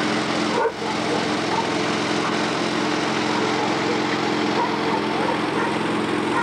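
Small garden tractor's engine running steadily as it tows a trailer at walking pace, with a brief dropout just under a second in.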